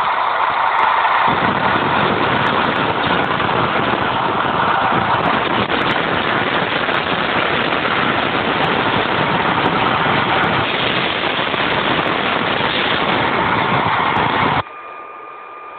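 Recorded sound effect of a bus engine running steadily, played back with a muffled, cut-off top end. It stops suddenly near the end, leaving a faint steady tone.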